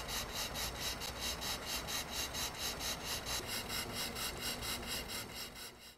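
Model cross-compound two-cylinder steam engine running, giving a fast, even beat of about five or six strokes a second. The beat trails off near the end.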